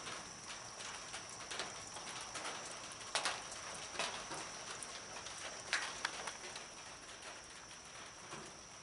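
Steady high-pitched drone of night insects, with a few sharp clicks and knocks scattered through it.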